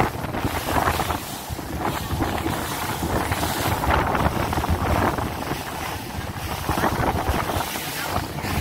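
Wind buffeting the microphone over water splashing against the hull of an inflatable boat on open ocean, swelling and easing in irregular gusts.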